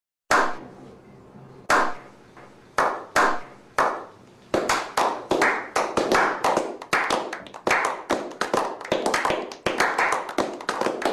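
A slow clap by a small group of men: single hand claps about a second apart that speed up and thicken into steady applause.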